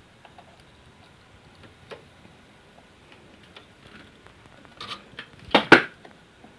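Light clicks and taps of small parts and hand tools being handled on an electronics workbench, with a louder cluster of three or four sharp clacks about five seconds in.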